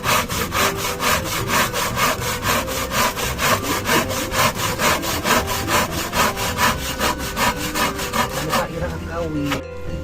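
Hand saw cutting wood in quick, even rasping strokes, about four to five a second, which stop near the end.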